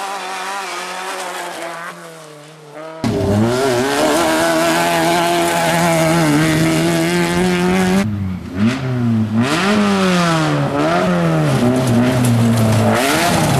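Rally car engines at high revs on a gravel stage. About three seconds in there is a sudden cut to a louder car held at a high, steady note. From about eight seconds its revs climb and drop again and again.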